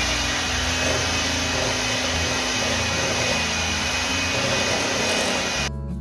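Electric hand mixer running at a steady speed, its beaters working flour into a soft batter in a glass bowl, with a constant whine over the motor noise. It switches off abruptly near the end.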